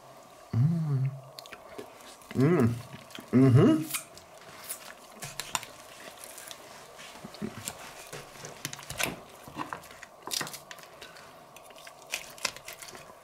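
A knife carving through the crisp skin and meat of a rotisserie-roasted goose, giving scattered crunches and crackling clicks. A few short voice sounds come in the first four seconds.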